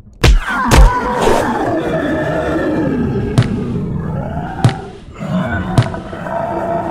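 A monster's roar sound effect, wavering and falling in pitch over a couple of seconds, with several sharp thumps spread through it; the two hits right at the start are the loudest.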